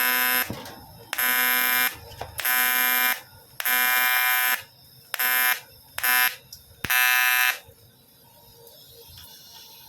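TIG welding arc buzzing in seven short bursts as the arc is struck and stopped over and over, stitching a weld on a CT100 motorcycle engine block. Each burst is a loud, even, harsh buzz that stops sharply, and the bursts end a little before the end.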